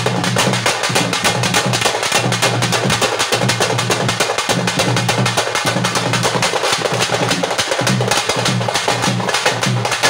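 Parai (thappu) frame drums beaten with sticks by a group of drummers in a fast, continuous rhythm.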